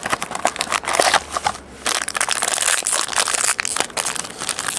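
Cellophane wrap and a foil trading-card pack crinkling and crackling as they are unwrapped by hand, with a short lull about a second and a half in.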